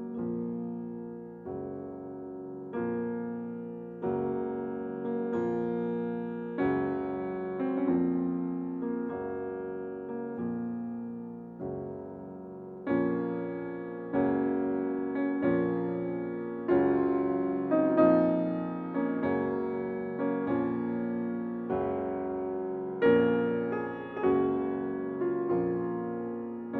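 Background piano music: chords struck about every second or so, each dying away before the next.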